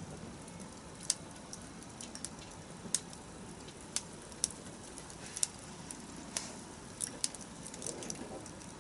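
Wood bonfire crackling: a dozen or so irregular sharp pops and snaps over a steady low rush of burning.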